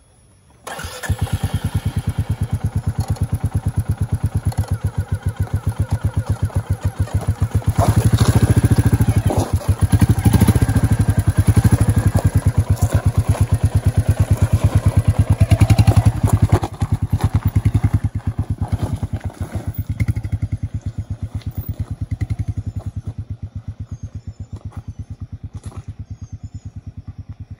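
Royal Enfield Meteor 350's single-cylinder engine starting about a second in, then running with an even, rapid thump. It runs louder for several seconds in the middle, then fades steadily as the motorcycle rides away up the trail.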